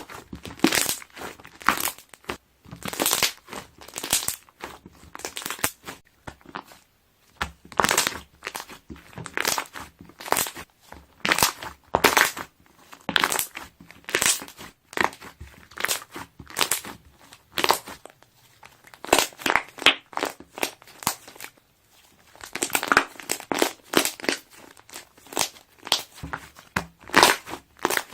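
Slime being pressed and squeezed, trapped air bubbles popping in repeated short bursts of crackling pops.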